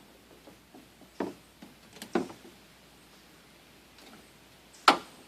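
Scattered sharp clicks and knocks of jumper-cable clamps being handled and fitted at the cars, a few light ones and then one loud sharp click near the end.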